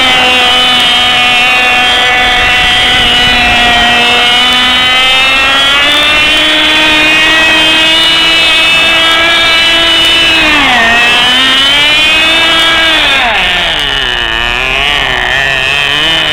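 Cox .049 two-stroke glow engine of a tether model car running flat out with a high, steady buzz, its pitch creeping up a few seconds in. Near the end the pitch sags and wavers unsteadily and the sound gets quieter.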